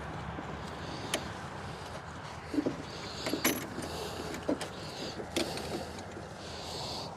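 Scattered short metal clicks and clinks of an 11 mm wrench working on a riding mower's battery terminal nuts, a few at a time, over a steady low hum.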